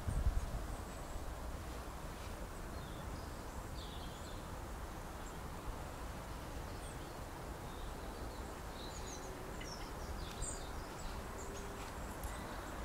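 Outdoor garden ambience: a steady background hiss with faint, scattered high bird chirps, more frequent about two-thirds of the way in. A brief low rumble on the microphone at the very start.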